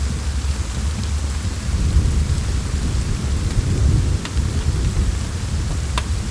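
Steady rain hissing, with a low rumble of distant thunder that swells in the middle, and a few sharp crackles and pops from a wood fire.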